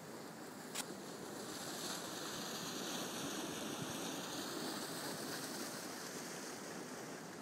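The River Dee rushing through the frozen, snow-covered Linn of Dee gorge: a steady rush of water that swells a little in the middle.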